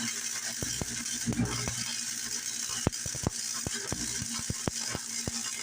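Electric welding arc crackling and hissing steadily, with many sharp pops, as a weld bead is run on a steel bracket.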